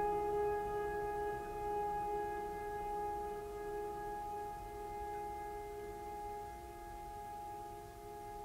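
Background music: a sustained chord held on and slowly fading.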